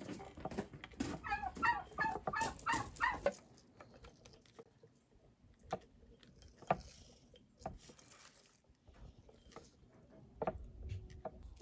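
A chicken clucking in a quick run of short calls over the first few seconds. Then scattered soft taps and rustles as sliced red onions are pushed by hand into a glass jar.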